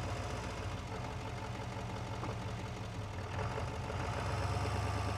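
Pickup truck engine running while driving, a steady low hum that grows slightly louder about three seconds in.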